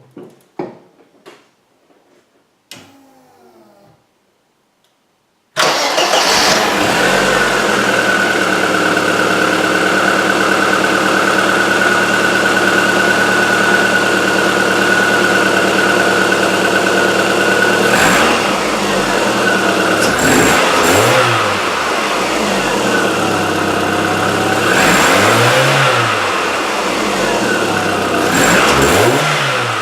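A few faint clicks, then a car engine suddenly running loud on a cold start, with a steady high whine over the idle. Over the last twelve seconds it is revved briefly four times, each rev rising and falling back to idle.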